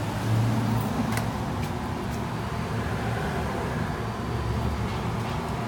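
Steady low electric hum of a hydraulic elevator's pump unit running while the car travels, with a faint click about a second in.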